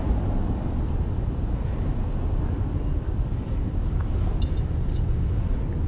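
Steady low rumble of wind buffeting the camera microphone, with a couple of faint clicks about four and a half seconds in.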